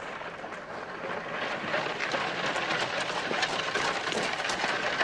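Two-horse carriage on a gravel drive: hooves clopping and wheels crunching over gravel in a dense, irregular clatter that grows louder about a second and a half in as it draws near.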